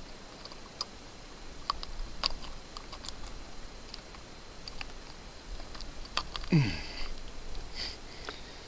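Irregular small clicks and knocks of fishing tackle being handled while a hooked bass is landed, with one short, low, falling voice-like sound about six and a half seconds in.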